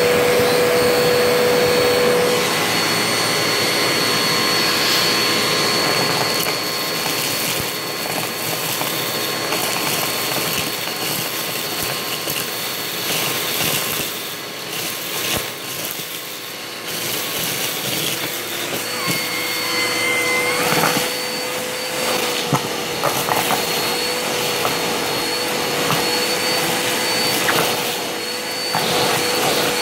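Vacuum cleaner running continuously with a steady motor whine, its loudness dipping about halfway through and rising again, with a few small clicks and knocks in the second half.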